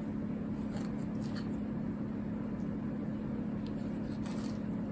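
Kitchen knife slicing raw sardine fillet thinly on a plastic cutting board, a few faint taps of the blade on the board, over a steady low hum.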